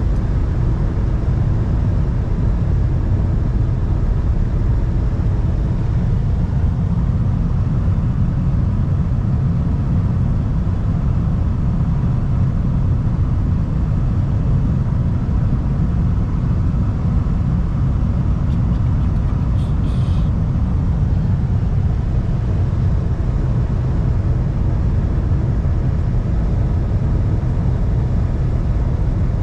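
Steady road and engine noise inside a car cruising at freeway speed: an even, deep rumble with tyre and wind hiss that does not change.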